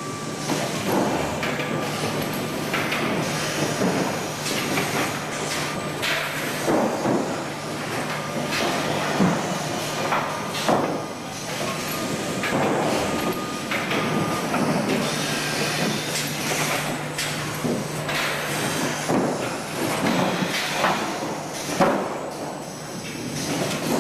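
Industrial 180-degree panel turning unit with roller conveyors running: a steady motor hum under irregular clanks and knocks from the machine, with a faint whine through about the first half.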